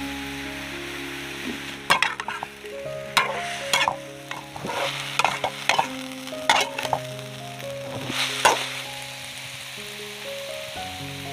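Mushrooms sizzling in a wok while a spatula stirs them, scraping and knocking against the pan many times in quick, irregular strokes through the first eight seconds or so, then only the sizzle. Background music plays underneath.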